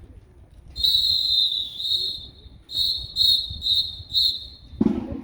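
A marching band's whistle signal: a shrill whistle gives one long blast and a short one, then four quick blasts in a row. Drums come in with heavy beats right at the end.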